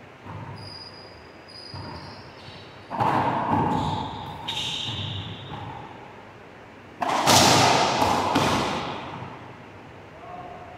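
Racquetball rally: the ball cracks off racquets and the court walls with a long echo, the two loudest hits about three and seven seconds in, with sneakers squeaking briefly on the hardwood floor.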